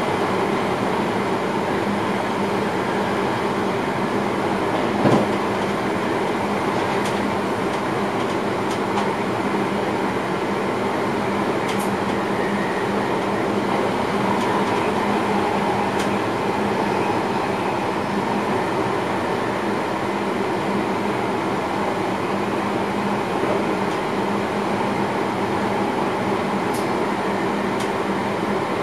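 Passenger train running along the track, heard from inside the driver's cab: a steady rumble of wheels and running gear with a low hum. There is a single sharp knock about five seconds in and a few faint clicks after it.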